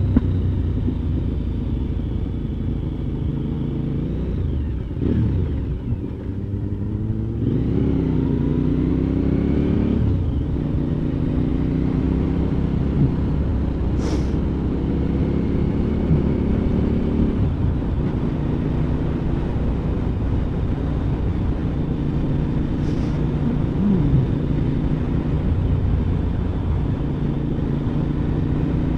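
Motorcycle engine running on the move, its pitch dropping and rising again a few times with the throttle and gear changes, over a steady rush of wind and road noise.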